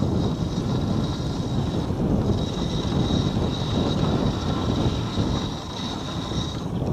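Dog sled gliding over fresh snow: a steady rushing noise from the runners and wind on the microphone. A thin, high steady whine runs through most of it and drops out just before the end.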